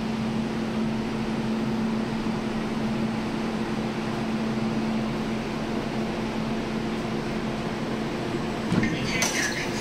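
An MTR A-train standing at the platform, its equipment and air-conditioning giving a steady low hum with two held tones. Near the end comes a knock and then a run of high chime tones as the doors start to open.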